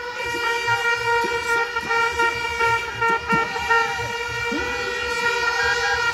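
A horn held on one long, steady note, over a low regular thumping and short shouts.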